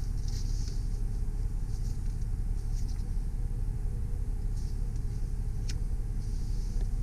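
The Mercedes ML320 CDI's 3.0-litre V6 turbo diesel idling steadily, a low even rumble heard from inside the cabin. Light handling noises sit over it, with one sharp click late on.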